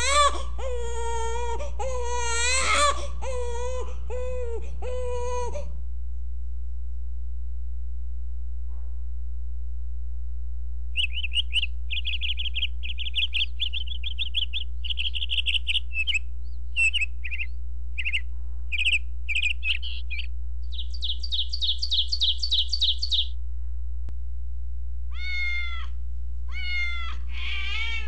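A baby crying for about six seconds, then after a pause a small bird chirping in quick runs that end in a rapid trill, and near the end a cat beginning to meow in falling calls. A steady low hum runs underneath throughout.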